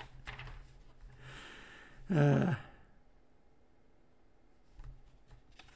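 A person sighing: a breathy rush of air, then a short voiced sigh about two seconds in. A few faint small clicks follow near the end.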